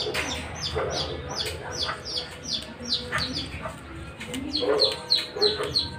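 A bird chirping over and over: a steady run of short high notes, each sliding down in pitch, about three a second.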